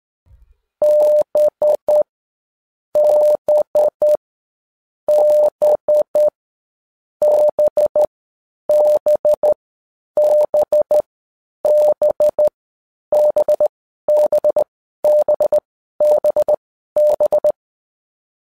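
Morse code beeps: one steady mid-pitched tone keyed into short and long beeps, sent as about twelve separate letters of the Morse alphabet with a pause of about a second between letters.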